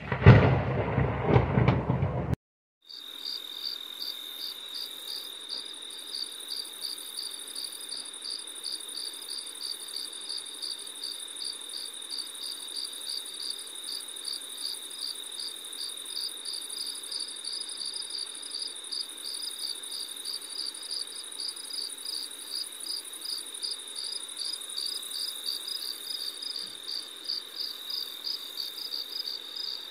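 A loud rush of noise for about the first two seconds, cutting off abruptly. Then meadow insects singing, a high-pitched chirping that pulses in a steady, even rhythm.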